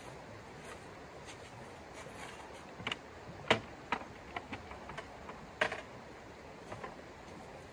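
Sharp clicks and knocks of a folding camp chair's metal frame being collapsed, several within a few seconds, the loudest about three and a half seconds in and another near the end, over the steady rush of a shallow stream.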